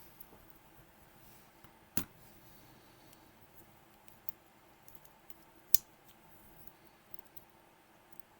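A few sharp, scattered clicks and faint ticks of small metal parts and tools being handled while a pin-tumbler lock is taken apart at the bible; the loudest click comes a little past the middle.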